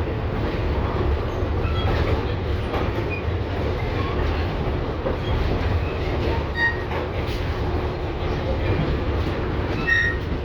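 LVS-2009 tram running, a steady low rumble heard from inside the car. Brief high pitched squeals, typical of wheels on rail, come about two-thirds of the way in and again near the end.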